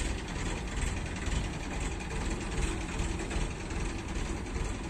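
A heavy engine idling steadily, a low even rumble.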